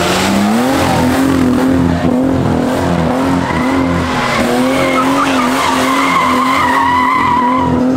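BMW E36 drifting in circles: the engine note climbs in the first second, then is held high and steady with small wobbles while the rear tyres screech continuously as they slide.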